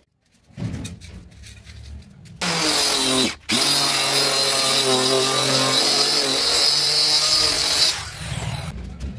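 Small handheld electric circular saw cutting through a plywood sheet. It starts about two and a half seconds in, breaks off for a moment, then cuts steadily at a held pitch and stops about eight seconds in.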